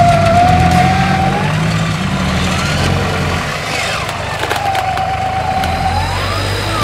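Electric winch on the front bumper of an off-road 4x4 whining as it hauls the vehicle up a muddy slope. The whine's pitch drops and rises a few times as the load changes, over the low, steady running of the engine.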